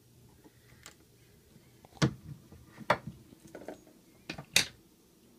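Several sharp clicks and knocks of hand-handled gear on a hard counter, starting about two seconds in, with the loudest near the end.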